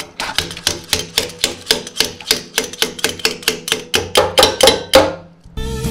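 Rapid metallic tapping from a hand wrench working at the snowblower's rear skid shoe bracket, set on a wood shim, about five sharp strikes a second. Music comes in near the end.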